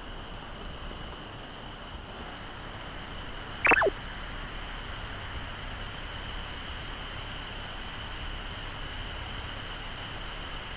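Mountain stream running steadily, with one short rising plop of water about four seconds in.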